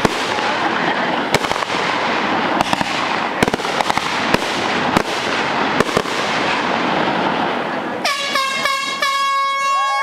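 Aerial fireworks bursting: a dense crackle with repeated sharp bangs. About eight seconds in the crackle stops and several horns start honking together in long, steady blasts at different pitches.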